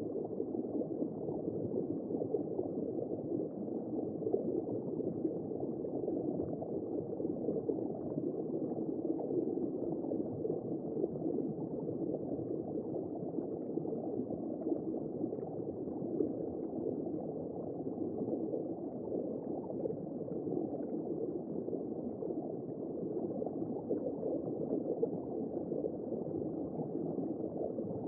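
Simulated womb sound for soothing a baby to sleep: a steady, muffled low whooshing rush with no high tones.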